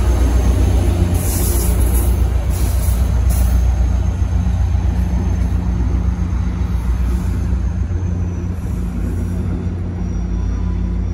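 Caltrain F40PH-series diesel locomotive running as it pulls away, a steady low engine drone that slowly fades as the train recedes. A few short hisses come about one to three seconds in.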